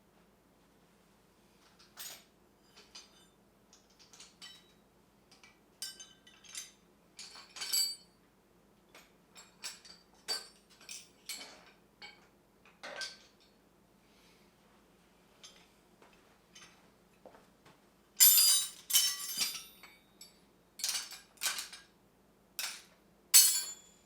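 Metal hand tools clinking and clattering as they are picked up and set down, in irregular separate knocks, with a louder run of clatter about three-quarters of the way through.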